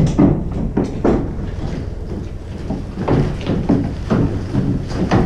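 Several people stepping down out of an ambulance's side door and walking across paving, with irregular footsteps and knocks of carried gear bags over a steady low rumble.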